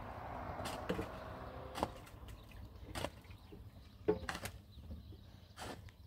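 Several light knocks and clicks at irregular intervals, over a low background hum.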